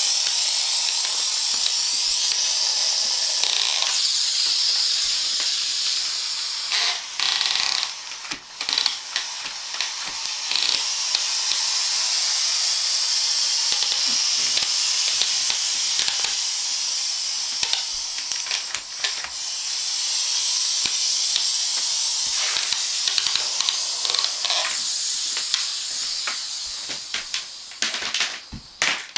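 Compact electric steam mop hissing steadily as it puts out steam while it is pushed over a wooden floor, with scattered clicks. The hiss dips briefly about eight seconds in and falls away near the end.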